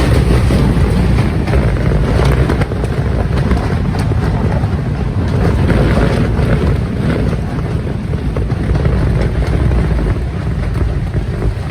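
Strong gale wind blasting across the microphone: a loud, steady low rumble of buffeting with gusts and scattered light rattles.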